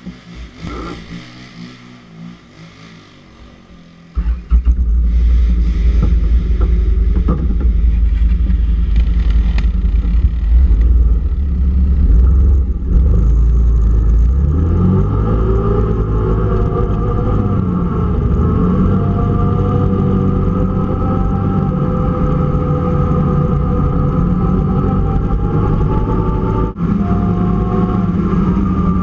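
Kawasaki KFX400 quad's single-cylinder four-stroke engine, quiet at first, then opened up about four seconds in as the quad pulls away and runs hard down a gravel trail. From about halfway on it holds a steady high-revving note.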